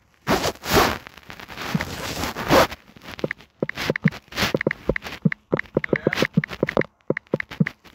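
A rustling noise for the first two or three seconds, then quick, irregular clicks of typing on a phone's touchscreen keyboard.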